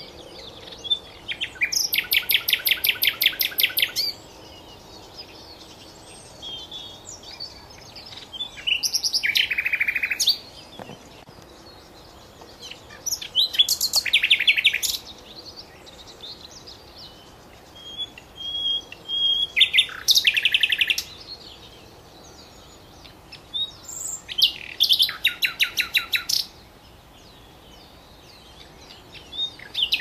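Common nightingale singing: loud phrases of rapid repeated notes, each two to three seconds long, separated by pauses of a few seconds.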